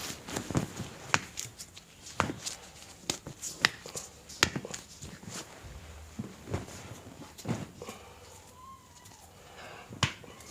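Irregular sharp taps and knocks, about a dozen, coming every half second to a second and thinning out after about seven seconds.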